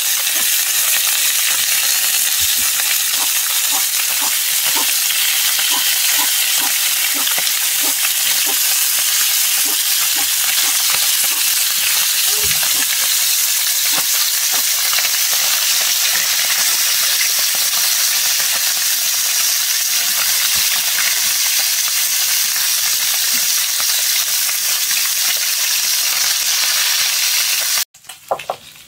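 Food frying with a steady sizzle, and scattered light clicks of a utensil stirring it. The sizzling cuts off sharply about a second before the end.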